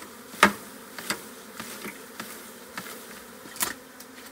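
A package of Saskatraz honeybees buzzing as a mass while being shaken out into a hive, with a few sharp knocks from the package being jolted over the hive box, the loudest about half a second in and another near the end.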